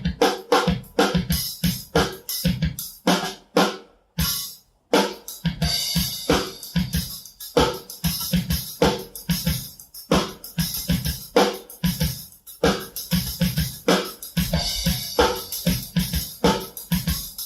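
Drum kit played in a free improvisation: busy, irregular strokes on drums and cymbals, with a short break about four seconds in. The recording has been run through Audacity's noise reduction.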